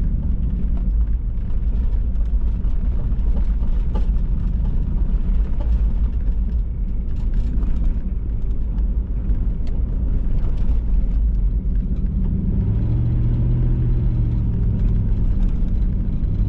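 Motor vehicle running with a heavy, steady low rumble and a droning engine hum that swells briefly about two-thirds of the way in, with small rattles and clicks over it.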